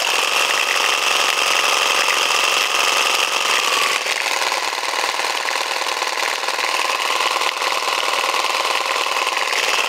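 Cordless reciprocating saw running steadily with a MixKwik paint-mixer attachment, rapidly shaking a strapped-on spray can of primer. The motor's note shifts slightly about four seconds in.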